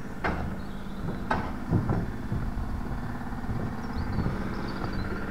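Footsteps on timber scaffold boards: a few knocking steps about a second apart, over a steady low hum.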